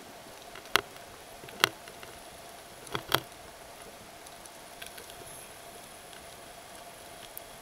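Underwater ambience picked up through a camera's housing: a steady faint hiss with a faint steady hum, broken by sharp clicks, four loud ones in the first three seconds and a few fainter ticks later.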